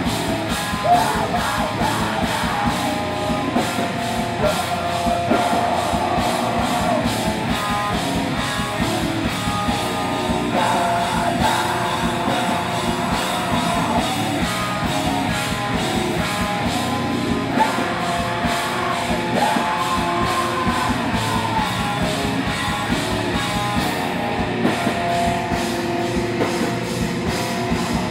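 Heavy metal band playing live: distorted electric guitars, bass guitar and a drum kit, with vocals into the microphone. The playing is loud and continuous, over steady fast drumming.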